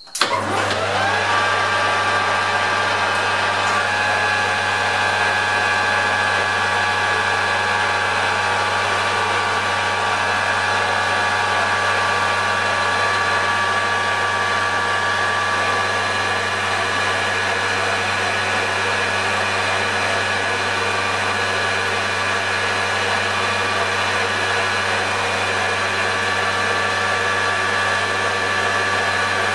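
Metal lathe starting up, its motor spinning up to speed within about a second, then running steadily with a whine over a low hum while turning down a steel shaft.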